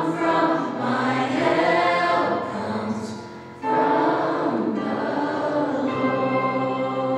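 A choir singing a gospel song, with a short dip in level a little after the middle, then full voices again and a long held chord near the end.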